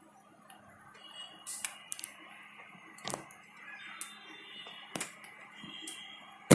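Computer keyboard keys pressed a few times: scattered short sharp clicks, the loudest near the end, over a faint steady hum.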